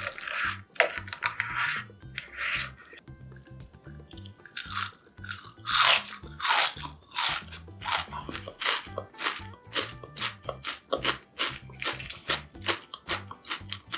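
Close-up crunching of crispy Korean fried tempura (twigim) being bitten and chewed: loud crisp bites in the first half, then a quick run of chewing crunches about three a second.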